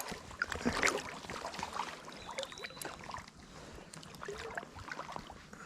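Irregular water sloshing and splashing, with scattered small knocks, as someone wades and shifts footing in a shallow, rocky creek.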